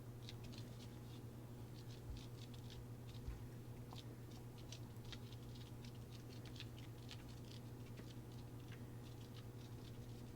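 Quick, irregular light clicks and crackles, many per second, over a steady low hum, with a soft thump about three seconds in.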